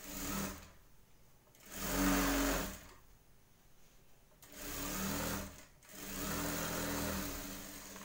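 Electric sewing machine stitching a blouse seam in short runs of about a second each, stopping and starting four times.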